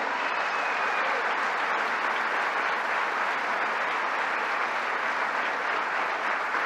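A large seated audience applauding, a steady sustained round of clapping that holds at an even level throughout.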